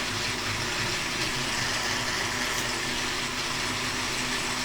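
Electric geared motors of a home-built robot arm running steadily as a joint is driven, a constant whirr.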